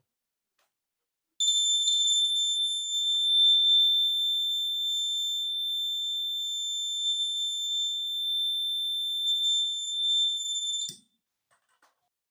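Homemade alarm's buzzer, powered by a 9-volt battery, sounding one steady high-pitched tone. It switches on about a second and a half in, holds for about nine seconds, and cuts off with a click near the end.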